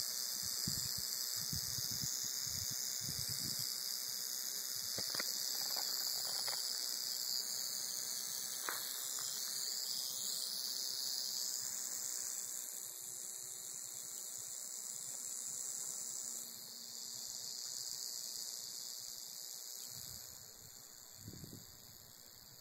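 Rattlesnake rattling its tail in a steady high buzz while feeding on a rabbit. The buzz grows quieter about thirteen seconds in and drops again near the end. A few low thumps come at the start and near the end.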